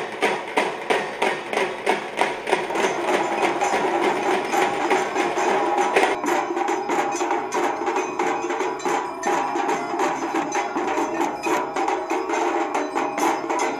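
Music: a fast, even percussion beat of about three strokes a second, growing denser about four seconds in, over sustained tones.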